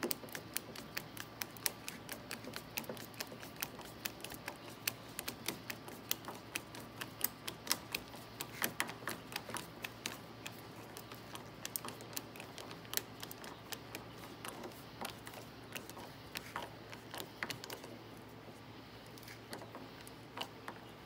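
Hand screwdriver driving a door-panel screw with a cup washer through the door card into the door, giving a fast, irregular run of small sharp clicks.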